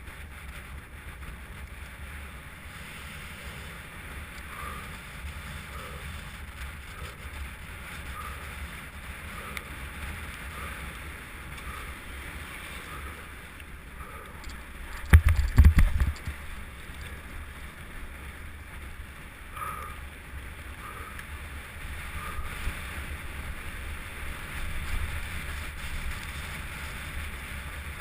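Wind rushing over the camera's microphone and a low rumble from a mountain bike descending a race course, with faint regular clicks and a loud cluster of thumps about halfway through.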